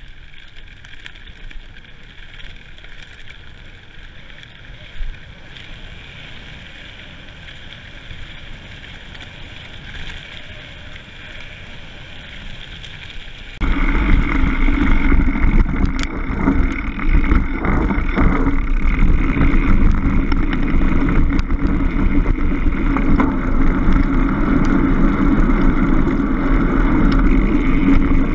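Mountain bike riding fast along a forest trail: a steady rush of wind and tyre noise with scattered rattles from the bike over the ground. About halfway through it suddenly becomes much louder and heavier, with more low rumble.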